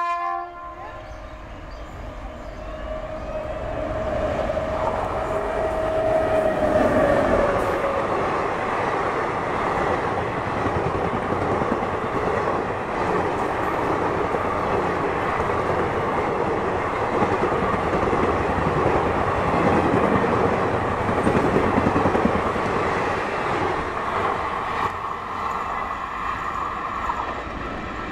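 Express train hauled by an Indian Railways WAP-7 electric locomotive passing through at speed. A horn blast cuts off right at the start, then a tone from the locomotive slides slightly down in pitch as it goes by. A long steady rush and clatter of the coaches over the rails follows, easing off near the end as the train draws away.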